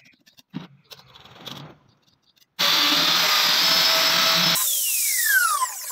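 A few light knocks and clicks, then a compact wood trimmer (palm router) starts abruptly and runs at full speed for about two seconds. It is switched off and winds down with a falling whine that fades near the end.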